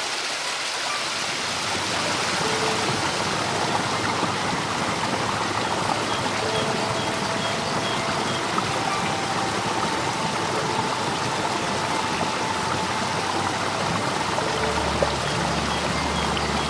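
Water of a shallow rocky stream rushing and splashing steadily over stones. A lower rumble joins near the end.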